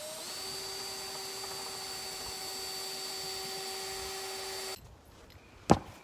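Cordless drill driving a screw into the wooden frame supports. The motor spins up, runs at a steady pitch for nearly five seconds and stops abruptly, followed about a second later by a single sharp knock.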